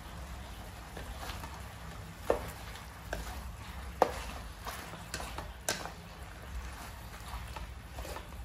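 Vegetables being stir-fried in a metal wok with a wooden spatula. Food is stirring and frying over a steady low hum, with three sharp knocks against the pan about two, four and six seconds in.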